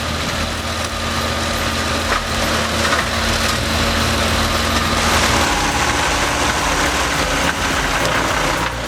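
Tractor engine driving a PTO mulcher, running steadily under load as it shreds branches into chips. About five seconds in, the engine tone steps up slightly and the shredding noise grows.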